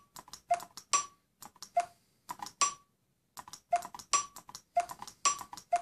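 Short ticks, each with a brief pitched ring, about two a second with a short pause near the middle: the tablet's audio feedback as the switch-access scanning highlight steps from icon to icon.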